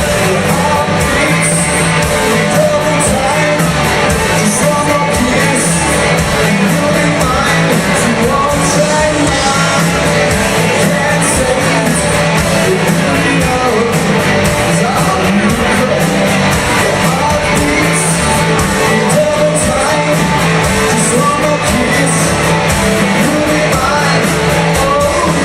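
Live rock covers band playing at full volume, with a steady drum beat, guitar and singing.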